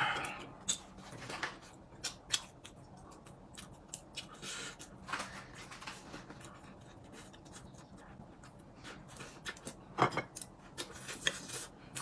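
Scattered light clicks and clatter of tableware during a meal, with a few short scrapes and a sharper knock about ten seconds in.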